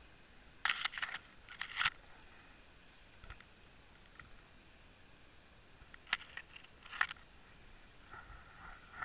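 Sharp clicks and knocks heard underwater, in two quick bursts within the first two seconds and a few more single clicks around six to seven seconds in.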